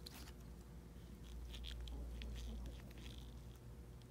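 Faint scattered clicks and small rustles from gloved hands working a plastic ink cartridge, its clip and a syringe, over a low steady hum.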